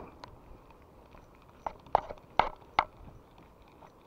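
Handling noise from a spinning rod and reel during the retrieve: four sharp clicks or knocks in quick succession over about a second near the middle, against a faint background.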